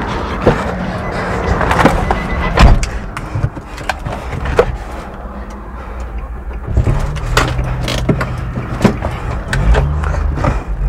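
Road traffic, with a vehicle driving past close by, and scattered sharp knocks and bangs.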